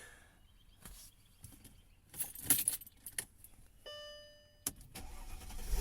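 Car keys jangling and clicking at the ignition, a short steady electronic chime a little before four seconds in, then the 2003 Mercedes-Benz S430's V8 engine being cranked and catching right at the end.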